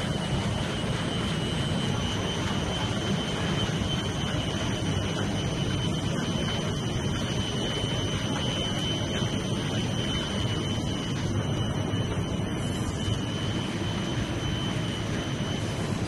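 Steady running noise of an NBR/PVC foam insulation sheet production line's machinery, with a thin high-pitched whine that stops near the end.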